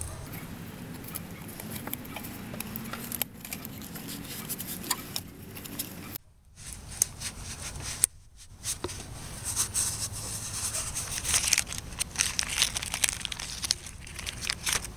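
Rustling and handling noise with many small clicks: a cloth rag wiping the removed aluminium oil filter housing. The crinkle of the new gasket's plastic bag comes in toward the end, and the sound nearly drops out twice, briefly, around the middle.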